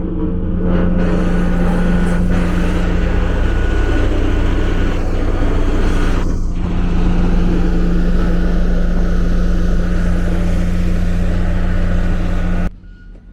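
A large engine running steadily and loud, with a constant low hum, cutting off suddenly near the end.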